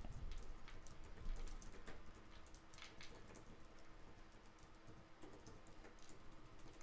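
Faint typing on a computer keyboard: irregular runs of quick key clicks.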